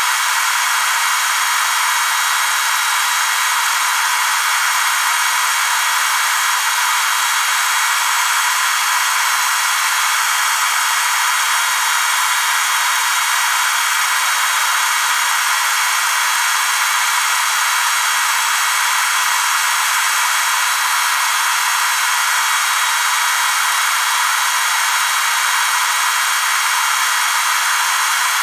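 Loud, steady hiss that does not change over the whole stretch, with almost no low end.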